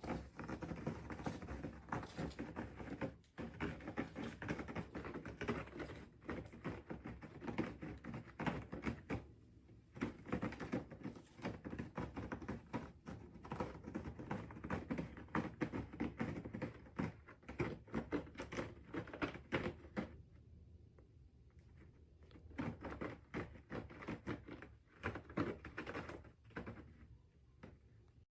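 Cat sharpening its claws on a scratcher: rapid, rough raking scratches that come in bouts, with a few brief pauses and a quieter spell a little past the middle before the scratching picks up again.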